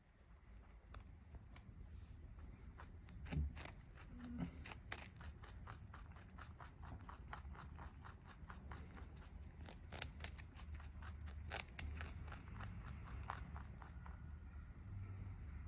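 A rabbit chewing a crisp green vegetable stalk, making quick faint crunching clicks that thin out near the end. There is one louder thump about three seconds in.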